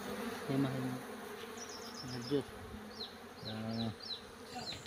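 Honeybees buzzing around a comb frame lifted from the hive, with three louder passes as bees fly close to the microphone: about half a second in, about two seconds in, and about three and a half seconds in.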